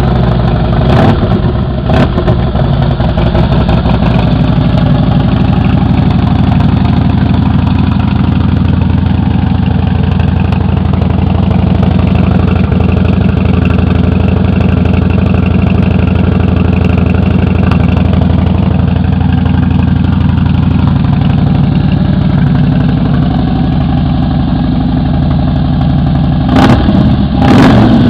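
A Harley-Davidson Fat Bob's Twin Cam 96 V-twin idling steadily through a Vance & Hines Big Radius 2-into-1 exhaust, getting louder near the end.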